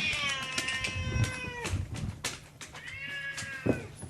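A cat meowing twice: a long, slightly falling meow, then a shorter one about three seconds in.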